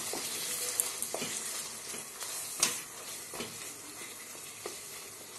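Mashed tomato sauce sizzling in hot oil in a pan while a wooden spatula stirs it, with a few sharp scrapes and taps of the spatula against the pan, the loudest about two and a half seconds in.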